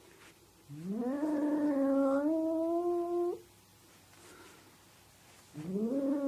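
Domestic cat yowling: a long drawn-out call that rises in pitch and then holds for about two and a half seconds, and a second one starting near the end.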